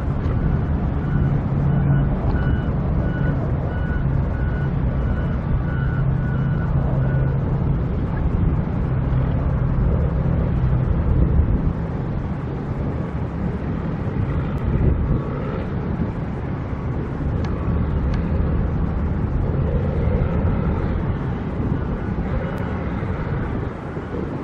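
A steady, low engine rumble from construction machinery. A reversing alarm beeps in an even rhythm during the first several seconds and again near the end.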